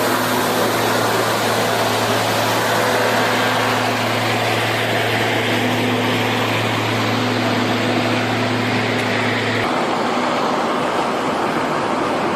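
Heavy road-construction machinery engine running steadily with dense mechanical noise. A steady low hum stops suddenly about three quarters of the way through, leaving the broader machine noise.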